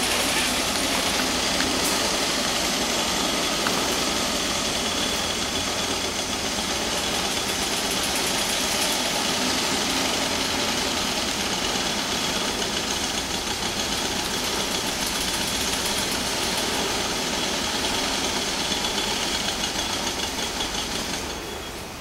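An engine running steadily at idle, a continuous even drone that fades near the end.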